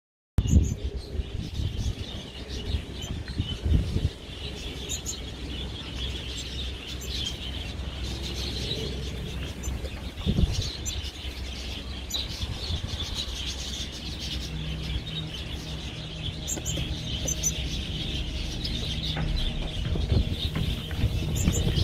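A flock of small aviary birds, canaries and finches, chirping and twittering without pause, over a low steady rumble. The sound starts abruptly about half a second in.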